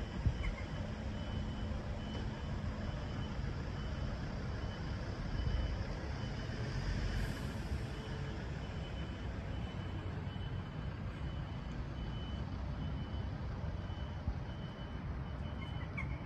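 Low rumble of a large vehicle's engine, with its reversing alarm beeping at one steady high pitch a little over once a second. A short hiss comes about halfway through.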